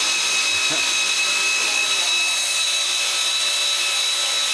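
A power tool running at a steady high-pitched whine.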